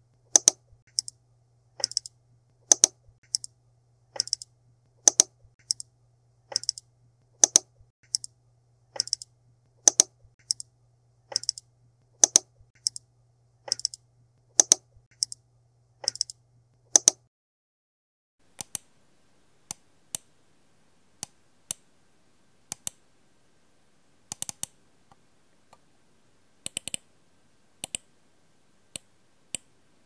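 Computer mouse buttons clicking, sharp single clicks at a steady pace of roughly one every three-quarters of a second. After about seventeen seconds they give way to fainter, sparser clicks, some in quick pairs.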